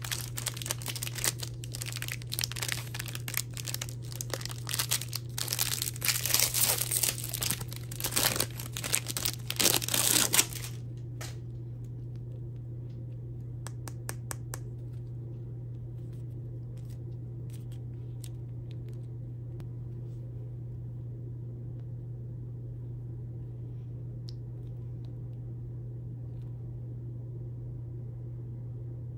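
Plastic wrapper of a Warheads Sour Taffy chewy bar crinkling and tearing as it is opened, for about the first ten seconds. Then the crinkling stops, leaving a steady low hum with a few faint taps and crinkles.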